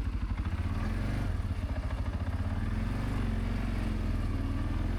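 CFMoto CForce 520L ATV's single-cylinder engine running at low revs. It chugs in a pulsing rhythm for the first couple of seconds, then settles into a steadier, smoother note.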